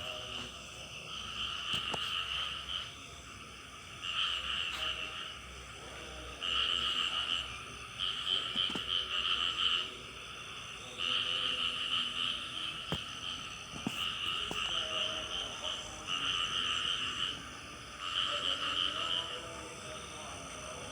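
Frogs calling in repeated rough, buzzy bouts of about a second each, with short pauses between them, over a faint steady high insect drone.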